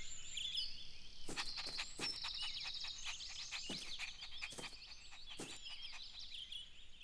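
Outdoor ambience of small birds chirping, with a fast buzzy trill between about one and three seconds in and a scattering of soft taps.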